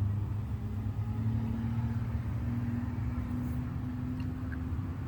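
Steady hum of many honeybees flying around the hive entrance on an orientation flight, young foragers circling to learn their hive's location, over a low steady rumble.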